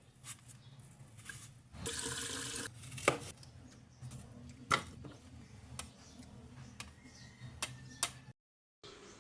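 Kitchen work: a tap runs briefly about two seconds in, then several sharp, irregular knocks and clatters of utensils on kitchen surfaces. The sound drops out completely for a moment near the end.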